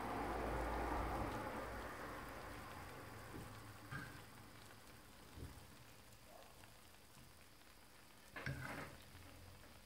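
Scallops au gratin in their shells sizzling on a hot baking tray just out of the grill, the hiss fading away over the first few seconds. A few faint clicks follow, and a short knock near the end.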